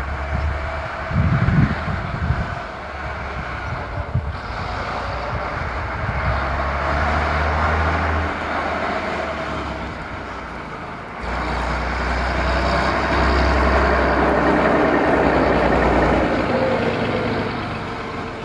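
Guy Wulfrunian double-decker bus's diesel engine driving past under power, growing louder, easing off, then jumping up again about eleven seconds in and staying loud for several seconds before fading near the end.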